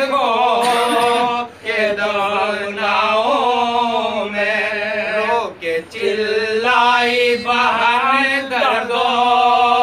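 Men chanting a Urdu marsiya, a Muharram lament for Karbala, unaccompanied, in long held notes that waver and slide between pitches, with a steady lower note sustained beneath. The singing breaks off briefly twice for breath.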